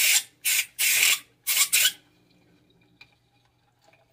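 Four short blasts of compressed air in quick succession, one after another over about two seconds, blowing dust out of a battery charger's small blower fan that had been grinding.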